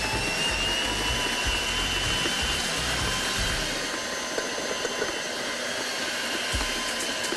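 Electric mixer motor running steadily as it kneads bread dough, a constant whine that rises slightly in pitch near the start.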